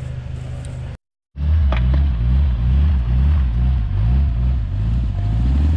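Suzuki Samurai's engine running under load in deep mud, its revs rising and falling unevenly. The sound drops out for a moment about a second in and comes back louder.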